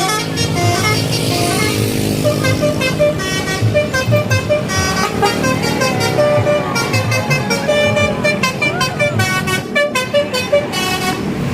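Multi-tone telolet horn on an odong-odong mini tourist train playing a fast tune of short notes that hop between pitches, over music.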